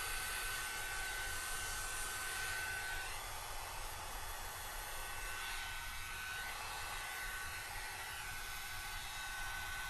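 Quo ceramic hot air brush, used as a hair dryer, blowing steadily: an even rushing hiss with a thin high whine that grows fainter about three seconds in.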